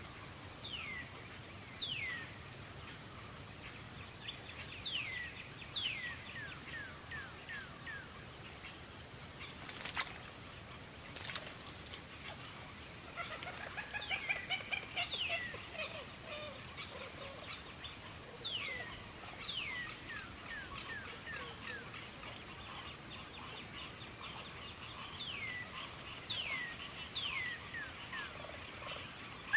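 Crickets trilling in a steady, unbroken high chorus at twilight. Over it a bird sings several times: each phrase is two long falling whistles followed by a quick run of short falling notes, with a jumble of chirps near the middle.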